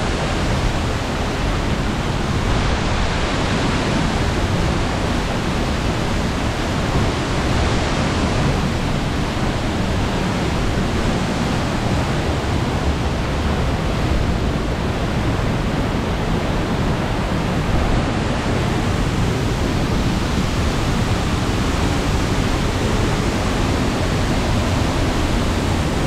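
Waterfall heard from its base: a loud, steady rush of falling water and the stream running over the rocks below it.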